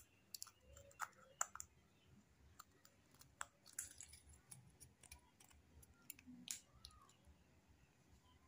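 Faint, scattered clicks and light taps of thin aluminium drink cans being handled and pressed together by hand.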